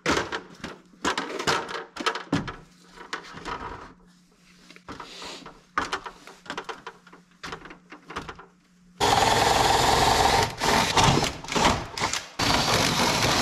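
Handheld cordless drill running under load against the wooden framing overhead, starting about nine seconds in with a fast rattle and pausing briefly once. Before that, scattered knocks and clicks of handling on the ladder.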